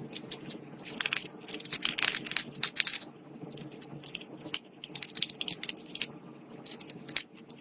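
Slime being squished and mixed by hand, with bursts of wet crackling and clicking over a steady low hum.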